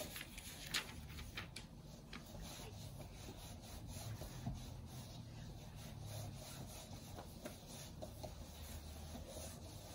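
Quiet rubbing and rustling of a picture book's paper pages being handled and turned, with a few faint ticks.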